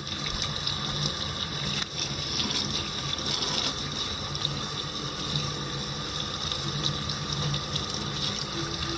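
Tap water running steadily into a sink while raw Canada goose breasts are rinsed under it to wash off loose feathers.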